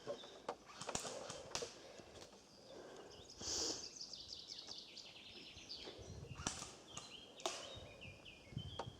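Footsteps crunching through dry forest leaves and twigs, with small birds calling in short falling chirps.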